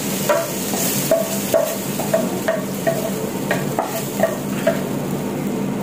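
Chicken fillets sizzling in a frying pan, with a utensil stirring and scraping in the pan in short regular strokes, about two a second.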